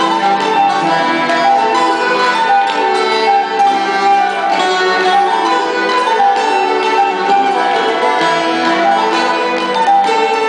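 Button accordion, acoustic guitar and folk harp playing a tune together, the accordion carrying the melody over the strummed guitar and plucked harp.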